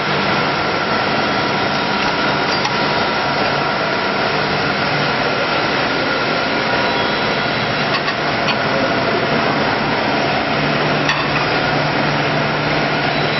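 Steady, loud running noise of a PVD vacuum coating machine and its pumps, with a constant low hum and a higher steady tone. A few faint knocks come in the second half.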